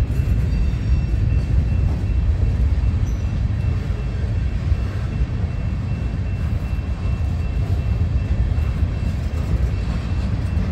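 Freight train gondola cars rolling past, a steady low rumble of steel wheels on rail, with a faint steady high tone above it.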